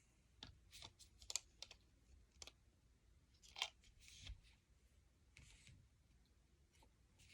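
Faint clicks and short rustles of Lego pieces being handled and pressed together, a few scattered sharp ticks with the sharpest a little over a second in and again about three and a half seconds in.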